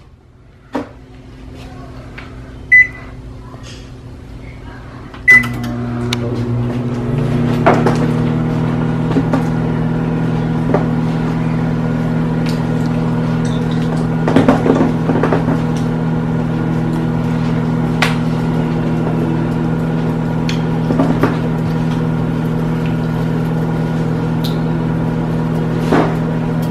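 Microwave oven set to heat food for 30 seconds: a clunk, two short keypad beeps, then about five seconds in the oven starts with a steady low hum.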